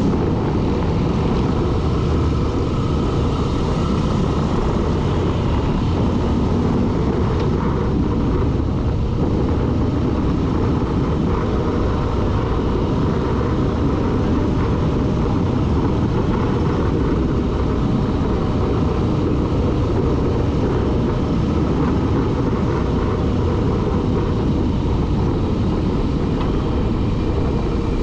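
Vehicle under way, recorded on a GoPro: a steady, dense rush of noise with no breaks or changes in level.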